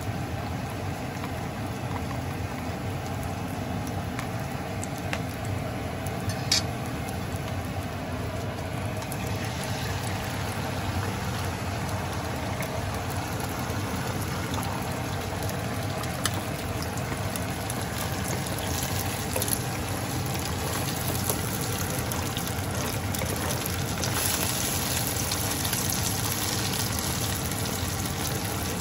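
Oil sizzling in a frying pan with fried garlic, onion and mackerel. Beaten egg is poured in partway through and the sizzle grows louder and brighter as the omelette starts to cook, with a single sharp click about six seconds in.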